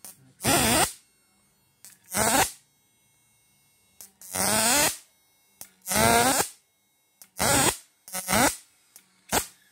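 Homemade transistor inverter of an electric fish-shocking machine and its transformer buzzing in short bursts with a wavering pitch, about seven times. Each burst comes as a crocodile clip is touched to the output terminal, lighting a heater-tube test load.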